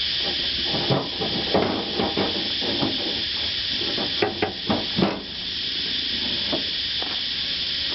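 Scattered metal clicks, knocks and scrapes as a window regulator's roller wheel is worked free of the notch in the window track inside the door, busiest about a second in and again around four to five seconds in, over a steady hiss.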